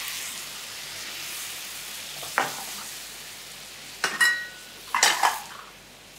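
Chicken thighs sizzling in a frying pan, the white wine just poured in bubbling on high heat, with a metal ladle clinking against the pan a few times in the second half, one clink ringing briefly.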